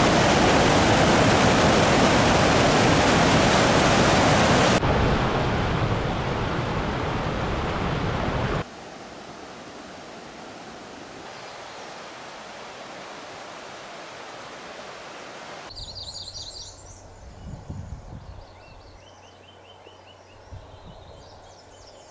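Whitewater of a waterfall rushing over rock, loud for the first several seconds, stepping down about five seconds in and falling to a faint hiss about nine seconds in. Faint high chirps and a few soft thumps come in the last several seconds.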